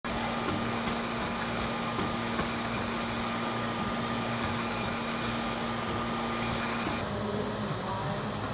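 Afinia 3D printer running while it prints: a steady mechanical hum of its fans and motors with a held whine. The sound shifts about seven seconds in.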